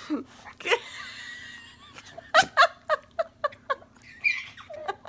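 A baby laughing in a string of short, rhythmic bursts, starting a little over two seconds in, after a brief vocal sound near the start.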